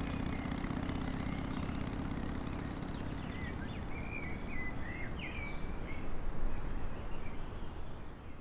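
Outdoor ambience: a steady background hiss and rumble, with a few short bird chirps from about three seconds in. The low tail of a music chord fades away at the start.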